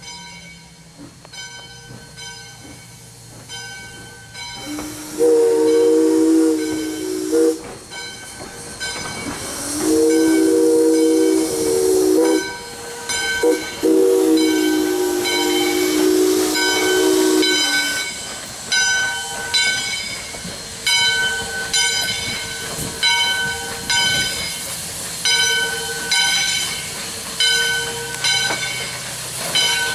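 Steam whistle of 2-8-2 Mikado steam locomotive no. 40 sounding the grade-crossing signal: two long blasts, a short and a long, each a chord of several notes. Steam hisses as the locomotive passes. A bell rings at an even pace.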